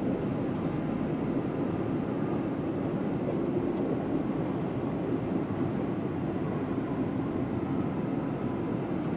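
A train running past, heard as a steady, even rumble that neither rises nor falls.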